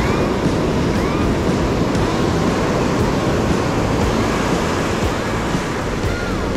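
Ocean surf washing on a sandy beach with wind buffeting the microphone: a loud, steady rush. A few faint, short whistling glides rise and fall above it.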